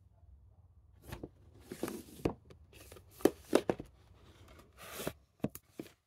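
Plastic Blu-ray cases being handled on a shelf: a run of sharp clicks and knocks mixed with short rustling scrapes, starting about a second in, the loudest knocks a little past the middle.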